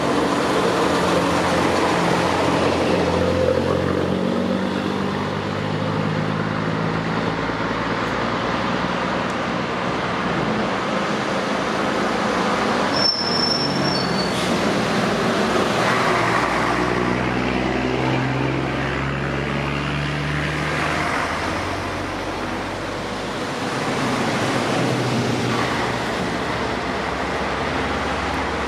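Vintage Scania-Vabis Torpedo trucks' engines running as the trucks drive up one after another, the pitch rising and falling as they accelerate and shift gears. A brief high squeal cuts in about halfway through.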